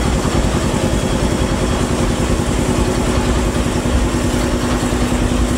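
Air compressor running steadily with a fast, even pulse and a constant hum. It is feeding compressed air to the oil burner of a steam locomotive being fired up from cold, before it has any steam of its own.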